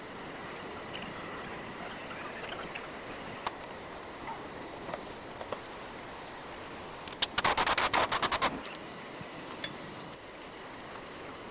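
Hand tools at work on a car's rear brake: scattered small metal clicks and knocks, then a fast run of about a dozen sharp clicks lasting just over a second, near the middle.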